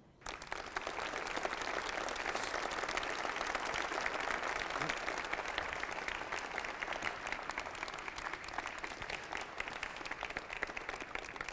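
Audience applauding. It swells within the first second and thins slightly toward the end.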